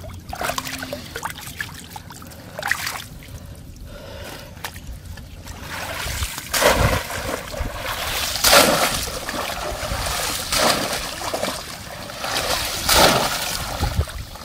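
Shallow pond water splashing and sloshing as a woven bamboo polo fish trap is lifted and plunged, with water pouring out of it, and hands groping through the water. The splashes are soft and scattered at first and grow louder and more frequent about halfway through.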